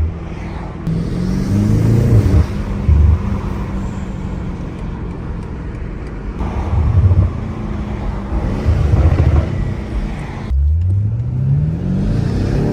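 BMW M8 Competition's twin-turbo 4.4-litre V8 engine and exhaust under acceleration, the revs climbing a little after the start. Near the end the sound drops out briefly, then the engine pulls hard again with a steep, steady rise in revs.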